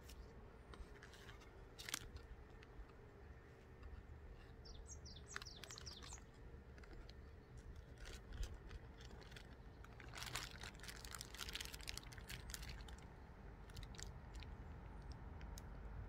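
Quiet outdoor ambience with a low steady rumble; a bird chirps several times about five seconds in, and scattered small clicks and crackles come and go, densest about ten to twelve seconds in.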